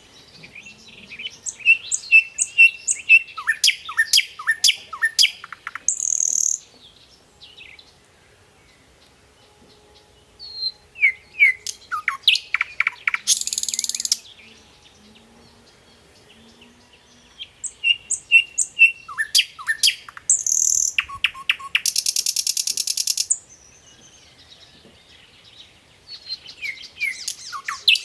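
A songbird singing in repeated bouts about every seven or eight seconds. Each bout is a run of clear whistled notes and quick down-slurred notes, ending in a harsh, buzzy trill.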